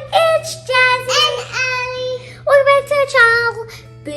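A young girl singing a short tune in several held notes.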